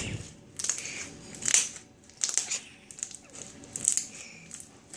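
Thick slime squeezed and pressed by hand, giving a series of short crackling squelches and pops as air trapped in it bursts.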